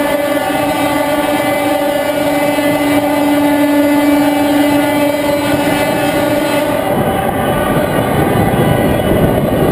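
Fire engine driving through a road tunnel, heard from inside the cab: a steady engine drone with road rumble. About seven seconds in the drone's pitched hum fades and a coarser low rumble takes over.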